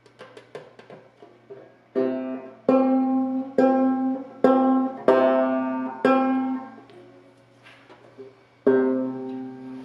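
Banjo being played: a few light plucks, then about six loud strummed notes a little under a second apart, each ringing on, and one more near the end.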